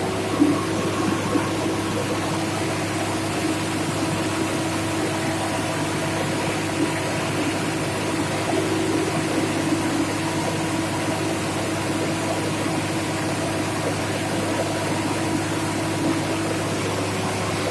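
Diesel engine of a hydraulic piling drill rig running at a steady speed: a constant drone with a low hum and a few faint knocks.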